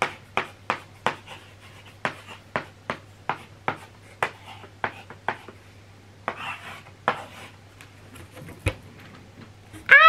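Chalk writing on a small chalkboard: an irregular run of short taps and scratches, about two or three a second, as the letters are drawn. The taps thin out after about seven seconds, and a voice cries out right at the end.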